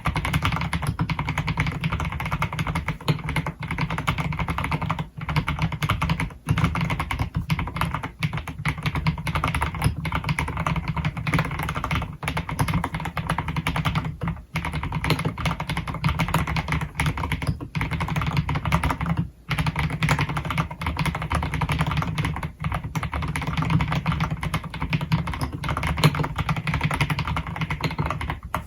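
Fast, continuous typing on an AKKO x MonsGeek MG108B full-size mechanical keyboard with piano switches, a dense run of keystrokes broken by a few brief pauses.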